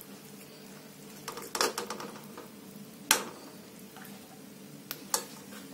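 Steel spoon clinking and scraping against a steel kadai as syrup-soaked malpuas are lifted out: a few soft clinks, one sharper clink about three seconds in, and two more near the end.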